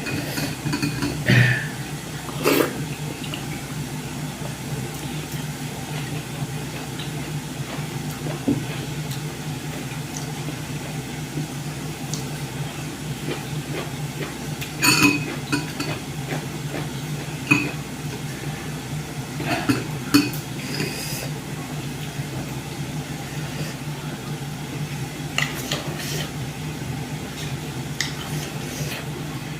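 Scattered clinks and taps of a plate and utensils during a meal, a few at a time with pauses between, over a steady low hum.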